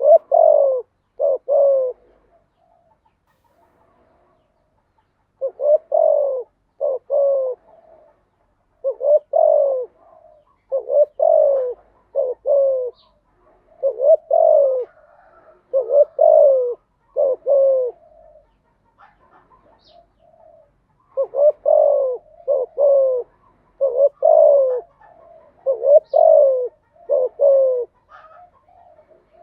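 Spotted dove cooing in repeated phrases of several short coos, each coo falling in pitch, with gaps of a second or more between phrases.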